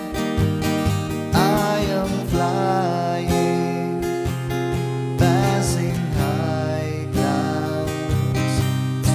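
Acoustic guitar with a capo being strummed in a steady rhythm, chords ringing on from stroke to stroke.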